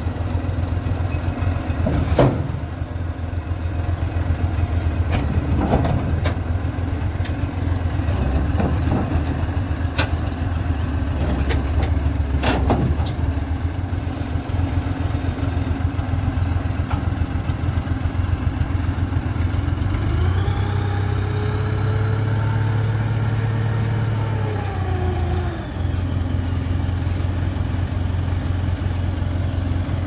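Diesel engines of a Komatsu D31P crawler bulldozer and a self-loader tow truck running steadily. In the first half there are several sharp metal clanks from the dozer's steel tracks on the truck's bed. About two-thirds through, an engine revs up, holds for about five seconds, then drops back.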